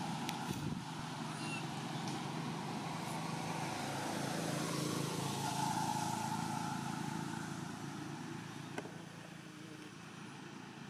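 Steady hum of a motor vehicle engine, fading away over the last few seconds, with one sharp click near the end.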